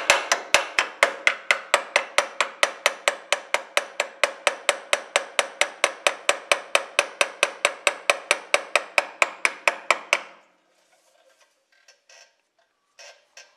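Small hammer tapping rapidly and lightly on the cast-iron exhaust manifold of a 1957 Ford 800 tractor, about four to five metallic taps a second, stopping about ten seconds in. The tapping, with a wrench holding pressure on a badly seized manifold bolt, vibrates it to help the penetrating oil work in and break it loose.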